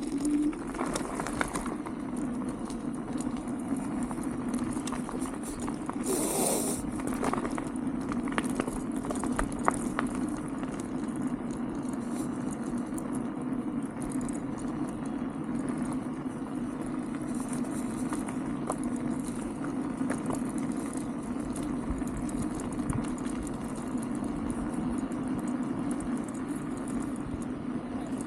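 Wolf King GT Pro dual-motor electric scooter riding on its PMT tyres: a steady low hum from the motors and tyres, with scattered rattles and ticks, and a brief louder rush of noise about six seconds in.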